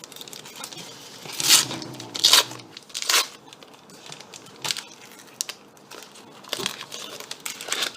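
A Panini Adrenalyn trading-card pack wrapper being torn open and crinkled, in a series of short rustling, crackling bursts.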